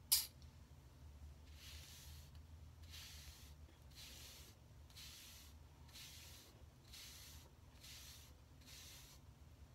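Bristle wave brush stroking through short waved hair, a soft high swish about once a second. A single sharp click right at the start.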